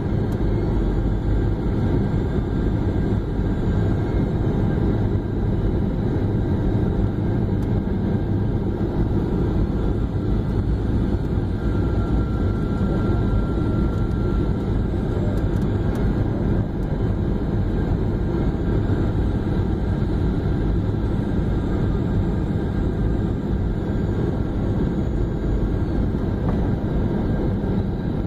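Airliner cabin noise on final approach: a steady low rumble of jet engines and rushing air heard inside the cabin.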